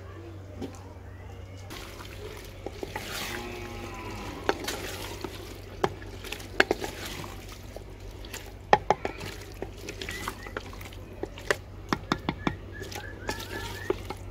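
Potato pieces going into a clay handi of hot methi masala, a sizzling hiss a couple of seconds in, then a wooden spatula stirring them, knocking sharply against the clay pot many times.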